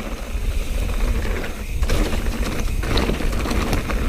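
Mountain bike (YT Jeffsy) being ridden over rough dirt trail: the bike rattles and clicks with many short knocks, over a steady low rumble.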